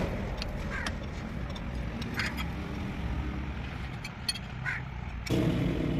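A few short metallic clicks and clinks of hand tools working on the bolts of a tractor's clutch housing, over a steady low rumble that grows louder about five seconds in.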